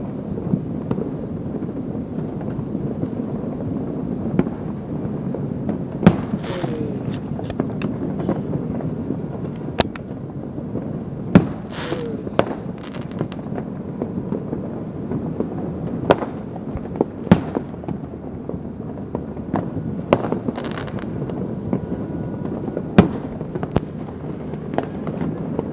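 Fireworks and firecrackers going off all over a city: a continuous rumble of many distant explosions, with a sharp nearer bang every second or few seconds.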